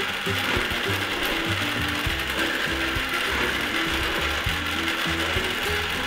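Battery-powered toy microwave oven running, its small motor and plastic gears turning the tray with a steady ratcheting whir.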